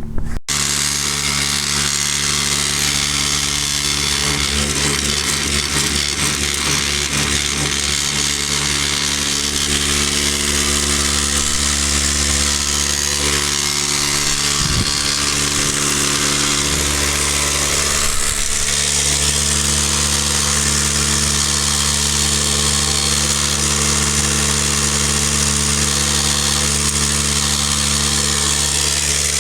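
Backcountry Tornado F2 electric non-air drywasher running: a steady electric motor hum with a steady hiss over it.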